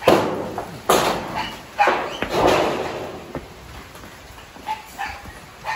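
Dog barking: four loud barks in the first three seconds, then a few fainter barks near the end.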